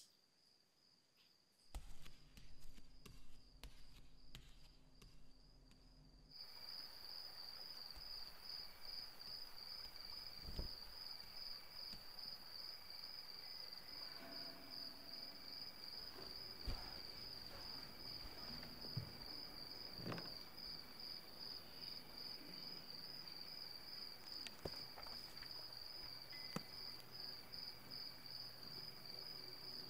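Crickets chirping in a steady, fast-pulsing trill that comes in about six seconds in, over a faint night ambience with a few soft knocks. Before it, faint indoor noise with a low hum and a few clicks.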